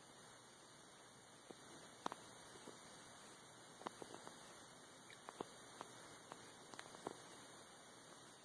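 Near silence: a steady hiss with about a dozen faint, short clicks and ticks at irregular intervals.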